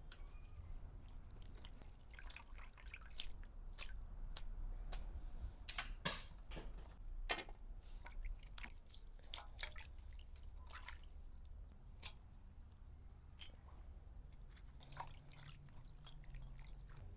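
Scattered clinks, taps and small wet splashes of kitchen prep work, utensils and water being handled in a bowl, over a low background hum.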